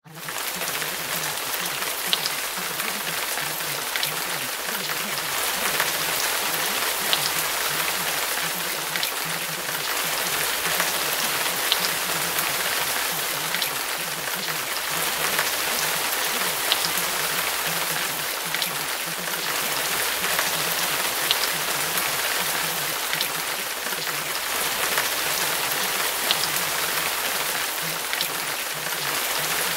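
Steady rain falling on a hard surface, with scattered sharper drop ticks. It is used as a masking track over subliminal affirmations.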